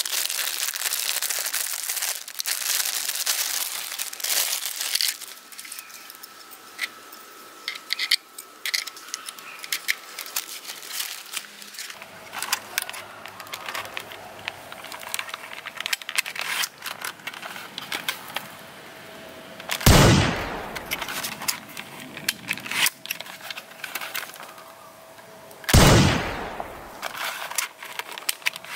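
Clear plastic bag crinkling and tearing as a plastic toy sniper rifle is unwrapped, followed by light clicks of handling the toy. Twice, about six seconds apart near the end, a loud quick downward-sweeping electronic zap, the toy rifle's sound effect.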